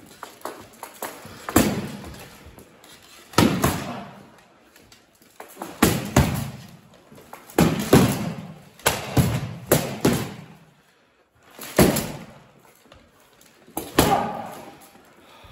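Training longswords clacking against each other and striking steel armour during sparring: about a dozen sharp hits, in clusters of one to three, each echoing briefly in a large hall.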